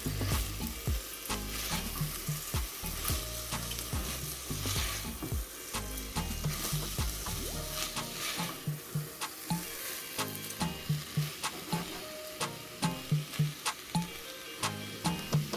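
Food sizzling in hot oil in a pot while it is stirred, the spoon clicking and scraping against the pot again and again.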